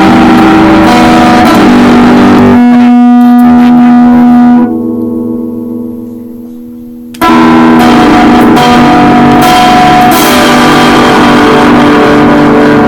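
Electric guitar played loud through distortion: a held chord rings and dies away about five seconds in, then another loud chord is struck and sustained until near the end.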